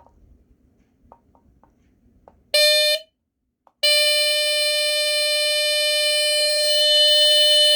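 Kobishi CLB-27 mechanical squealer horn of a Square D Earli-Gard EGD-4B battery smoke detector sounding on test: a few faint clicks, a short half-second squeal about two and a half seconds in, then a steady high-pitched squeal from about four seconds in that keeps going. The horn is 'not super loud' for a CLB-27.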